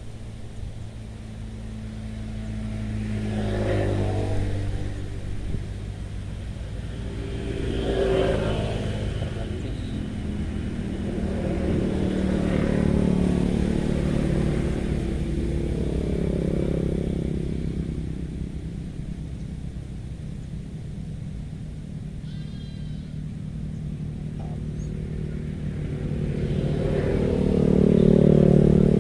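Motor vehicles on a nearby road passing one after another, each engine swelling and fading, with the loudest pass near the end.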